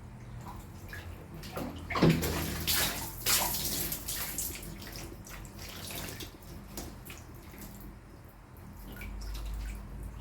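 Water splashing and running while a Scottish Fold cat is bathed, loudest about two seconds in, then trailing off into scattered splashes and drips.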